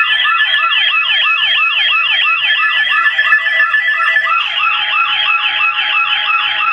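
NOAA weather radio sounding its alert siren for a severe thunderstorm warning: rapid falling sweeps, about four a second, over steady tones, one of which changes about four and a half seconds in.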